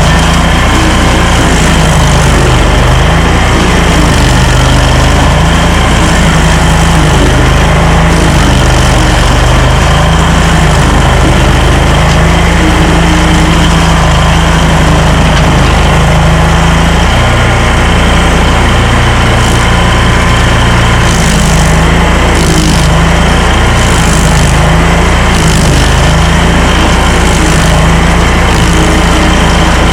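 Stump grinder's engine running hard, its pitch dipping and recovering every couple of seconds as the machine loads and unloads.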